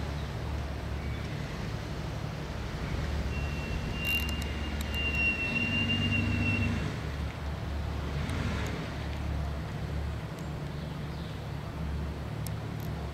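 Jeep Wrangler engine running at low revs as the 4x4 crawls slowly over a dirt crest, a steady low rumble that swells slightly midway. A thin high whine is heard for a few seconds in the middle.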